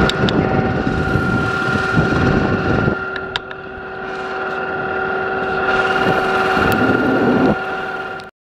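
Steady machinery hum on a ship's deck, several constant tones over a rushing noise, with a few sharp clicks; it cuts off suddenly near the end.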